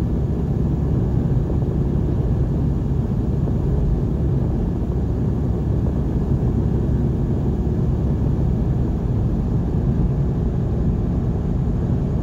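Steady low road and engine rumble inside the cab of a vehicle cruising at highway speed.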